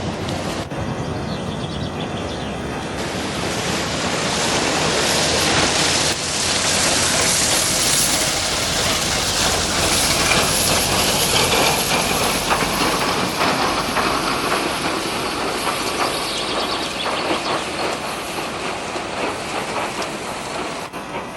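Snow avalanche running: a broad rushing noise that swells over the first few seconds, stays loud through the middle and slowly eases toward the end.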